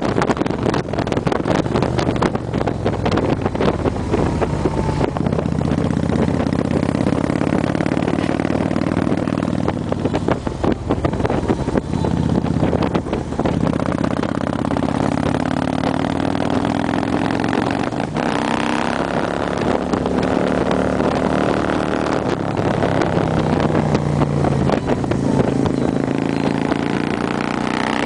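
Harley-Davidson Street Glide's V-twin engine running on the move, its pitch rising and falling as the throttle comes on and off through the bends. Wind buffets the microphone throughout.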